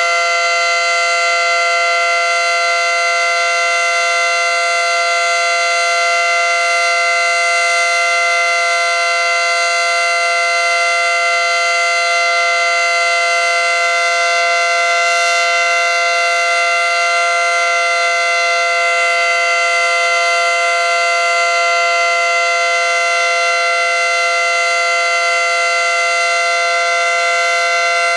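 ACA Screamer outdoor warning siren sounding its Alert signal: a loud, steady dual tone from its 9/12-port rotor, holding one unchanging pitch pair.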